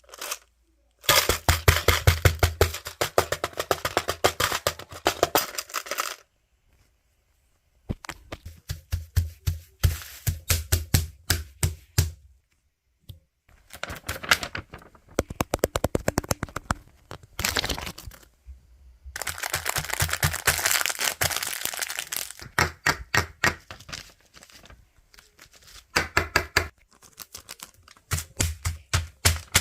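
Rapid tapping and clicking on objects, in bursts of several seconds with short pauses between.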